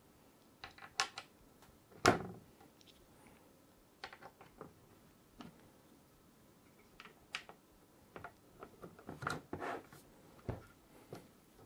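Light plastic clicks, taps and brief scrapes as small plastic spacers are pushed onto the threaded posts of an AM4 backplate on a motherboard, with a sharper knock about two seconds in and a run of clicks near the end.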